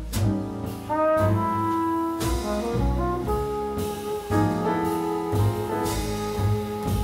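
Jazz quartet playing: a flugelhorn carries the melody in held notes over piano, upright double bass and drums.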